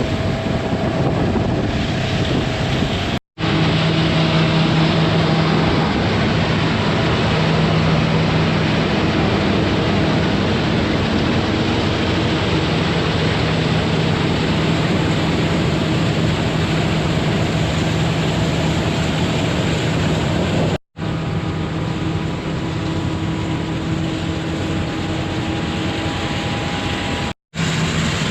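Combine harvester running steadily while cutting wheat, a constant mechanical hum under a heavy noise of machinery and wind on the microphone. The sound drops out briefly three times, at about 3, 21 and 27 seconds in.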